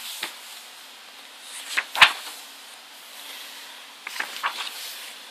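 Glossy photobook pages being handled and turned: paper swishes and rustles, with a sharp snap about two seconds in and a cluster of softer rustles near the end.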